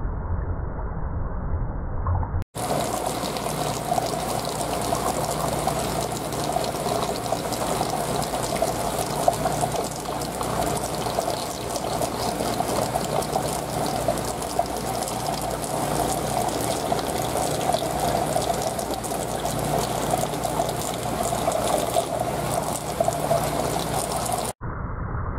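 Water circulating in an aquarium tank: a steady trickling, pouring sound with a low pump hum under it. It cuts in sharply about two seconds in and cuts back to a duller low hum shortly before the end.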